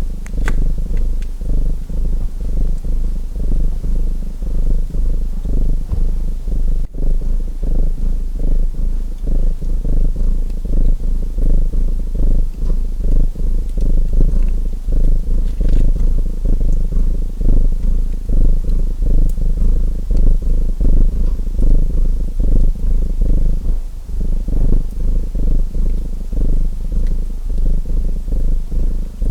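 Domestic cat purring loudly in a steady, pulsing rhythm, with a few faint crackles from a wood fire.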